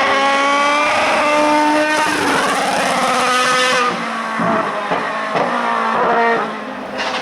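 Hill climb race car engine accelerating hard through the gears: the pitch climbs, drops at an upshift about two seconds in, climbs again, then gives way after about four seconds to a run of short rises and falls as the car goes away.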